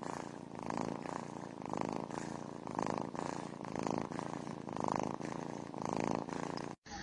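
A cat purring, the rumble swelling and fading about once a second with each breath; it cuts off abruptly near the end.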